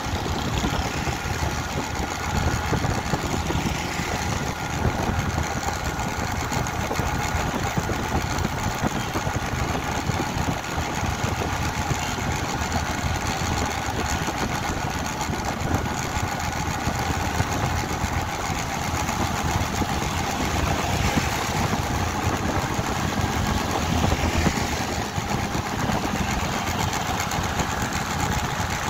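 A vehicle's engine running steadily while driving along a road, with a constant rushing road noise.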